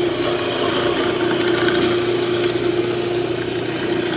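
Electric millstone-type soybean grinder (soy milk machine) running with a steady hum, as it grinds soybeans.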